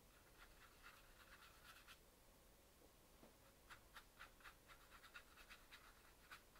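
Faint scratchy strokes of a watercolour brush on textured watercolour paper, short quick strokes about four a second, in two runs with a pause about halfway.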